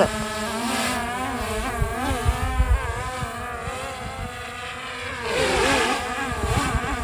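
Quadcopter drone's propellers whining, the pitch constantly wavering up and down as the motors change speed, with gusts of wind rumbling on the microphone.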